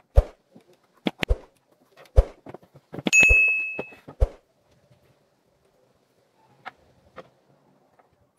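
Sound effects of a subscribe-button animation: a run of sharp clicks, then a bright bell ding about three seconds in that rings for about a second. Two faint taps follow near the end.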